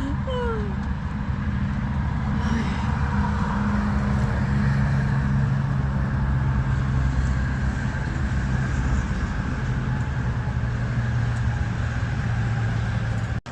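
A vehicle engine idling steadily with a low hum.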